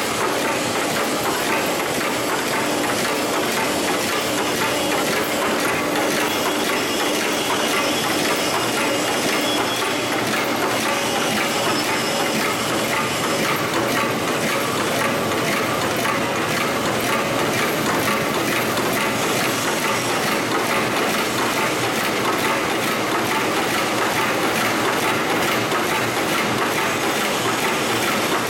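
Nonwoven towel folding machine running: a steady, fast mechanical clatter.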